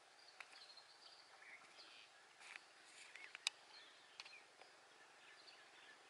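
Rosy starling giving faint, scattered short chirps and squeaky notes mixed with sharp clicks. The loudest sound is a single sharp click a little past halfway.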